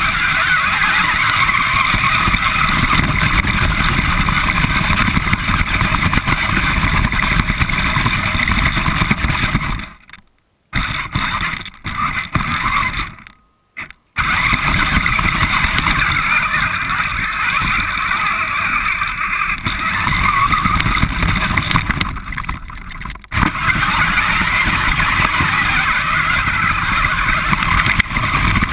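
RC car driving, heard from a GoPro mounted on the car itself: a loud, steady rush of drivetrain, wheel and wind noise. The sound drops out suddenly twice, briefly, about ten and thirteen seconds in.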